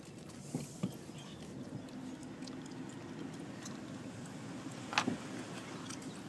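Low, steady hum of a car driving slowly, heard from inside the cabin, with a few light clicks or knocks, the sharpest about five seconds in.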